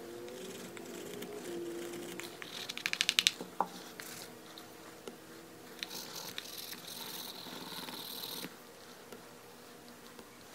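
Hand finishing of a leather sheath edge: a short burst of rapid, chattering rubbing strokes about three seconds in, then a steady scratchy friction hiss as a wooden burnisher works the edge, which stops suddenly a couple of seconds later.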